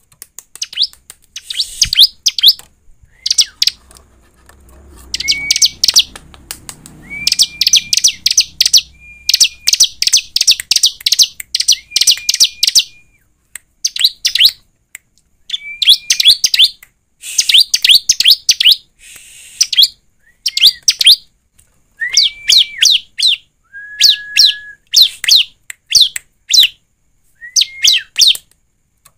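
Bar-winged prinia (ciblek) singing: repeated bursts of rapid, sharp high notes, many opening with a short whistled note, about one burst every second or two.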